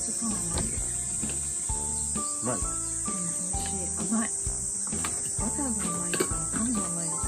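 Steady high-pitched insect trilling, with background music of held melody notes over a low bass line.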